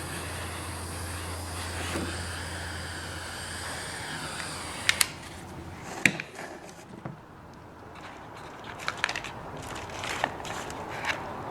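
Small handheld torch flame hissing steadily while heat-shrink tubing is shrunk onto a shift cable, stopping about six seconds in. Sharp clicks and small handling noises follow.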